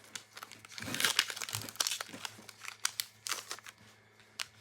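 Foil wrapper of a Pokémon trading-card booster pack crinkling and crackling as it is opened and handled, busiest in the middle, with a sharp click near the end.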